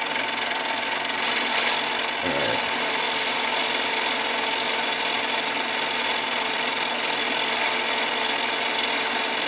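Mini lathe running while an indexable carbide tool takes a light finishing cut in an aluminium bar. A steady high-pitched whine comes in about a second in and holds.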